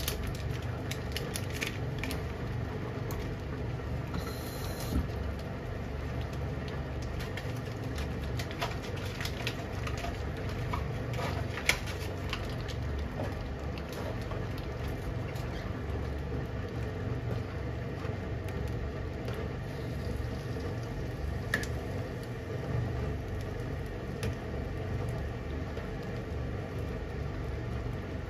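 Chikuwa curry simmering in a frying pan on a gas stove: small scattered bubbling pops over a steady low hum.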